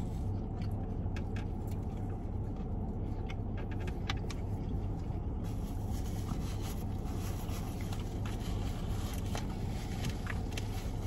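Steady low hum inside a car's cabin, with small scattered clicks and rustles of eating and handling fried chicken from a styrofoam takeout container.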